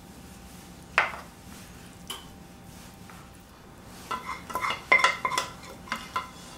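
A wooden spoon knocking and scraping against a metal saucepan and a metal baking pan while béchamel sauce is spread and scraped out of the pot: one sharp knock about a second in, and a quick run of clatters near the end.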